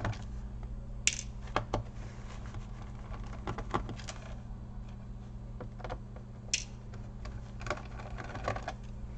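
Scattered light clicks and taps of a small screwdriver and fingers on a laptop's plastic and metal deck as small screws are taken out, over a steady low hum.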